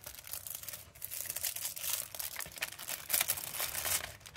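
Thin clear plastic packaging bag crinkling as it is handled, a run of irregular crackles.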